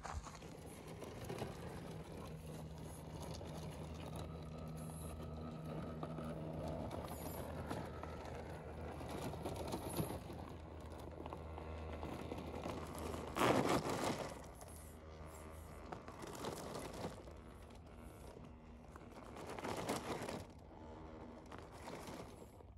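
RC crawler truck driving off-road: a steady electric motor and gearbox whine under crunching and scraping of tyres over rough ground. Louder crunching surges come about 13 seconds in and again near 20 seconds, and the whine fades out around 16 seconds.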